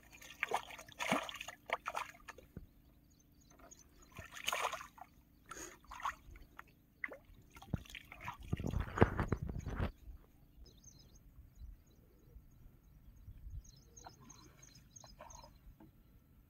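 Water splashing and sloshing in the river shallows as hands work a mesh net and rinse in the water, in irregular splashes with the loudest, longest splashing a little past the middle.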